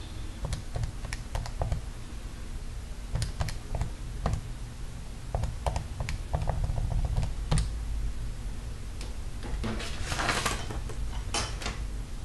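Irregular clicking of TI-84 graphing calculator keys pressed one after another as a calculation is entered, with a short scratchy rustle about ten seconds in.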